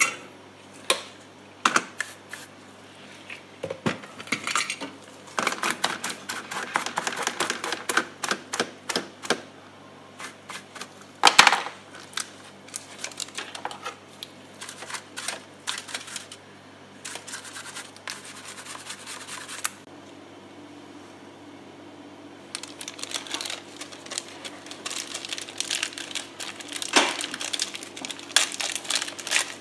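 Small tools clicking, tapping and scraping against the equalizer's circuit board and parts during a component replacement; about two-thirds of the way in a steady low hum starts and runs under the scratching.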